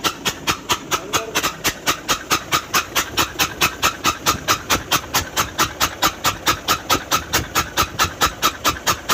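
Nissan FE6 six-cylinder diesel engine idling with its number-one injector removed: compressed air hisses out of the open injector bore in sharp, even puffs, about five a second. With that cylinder opened up the crankcase blow-by stops, which the mechanic takes as proof that the fault is in cylinder one.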